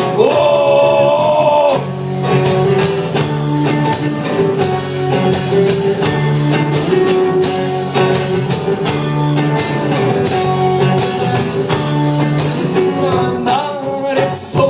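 Rock band playing an instrumental passage between sung lines: a held, wavering note opens it, then guitar and drums carry on with a steady beat, and a short gliding note comes near the end.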